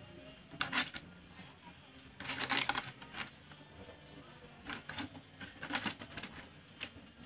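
Small hard objects clinking and rattling in short bursts as they are handled and set in place on a homemade stand, with the longest run of rattling about two seconds in and a few single clicks after.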